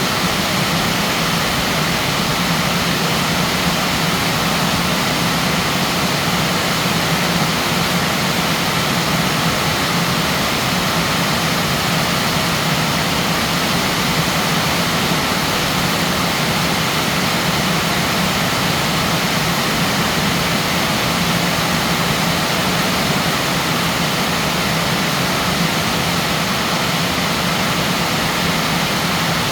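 Heavy storm rain with wind, a steady loud rushing that does not let up.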